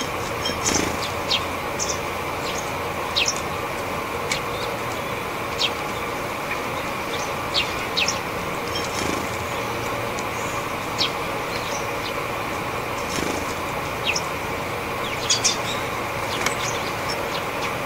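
Japanese tits giving short, high call notes, scattered every second or so, with a quick cluster near the end. These are winter ground calls rather than song. The flutter of wings comes and goes as the birds land at and leave the seed dish close by, all over a steady background hum.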